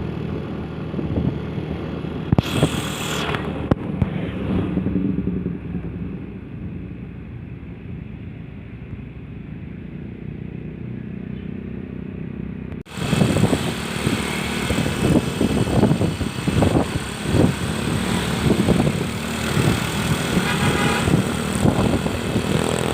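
Road traffic: vehicle engines running, with a short whoosh of something passing about two and a half seconds in. About thirteen seconds in the sound cuts abruptly to a louder, uneven stretch of engine and rushing noise.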